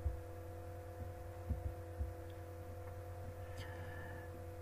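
Faint steady electrical hum made of several even tones, with a few soft low thumps near the start and about a second and a half in.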